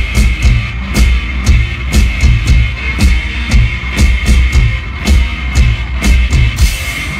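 Live rock band, drum kit and electric guitar, playing loud with a heavy kick-drum beat about twice a second and crashing cymbals; the beat stops near the end.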